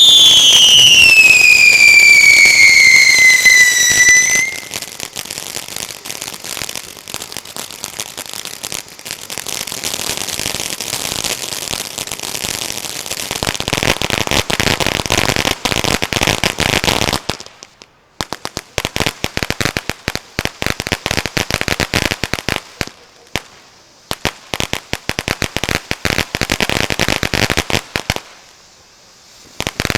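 Spartan Screamer firework fountain burning: a loud screaming whistle that falls steadily in pitch over its first four seconds or so, then dense crackling that goes on for the rest of the burn, dropping out briefly a few times.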